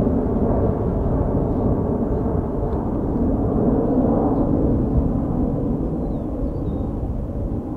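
Jet airliner engines giving a loud, low rumble that slowly fades.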